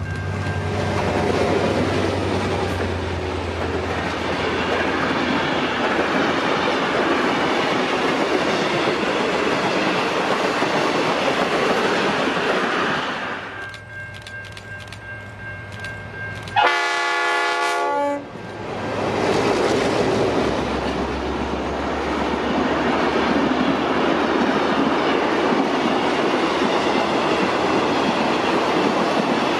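Train running on the rails with a steady loud rush of noise that eases off for a few seconds a little past halfway. A single locomotive horn blast of about a second and a half sounds at that point, before the running noise returns.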